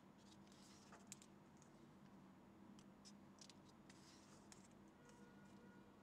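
Very faint rustling and soft ticks of paper as book pages are handled and turned, over a steady low hum.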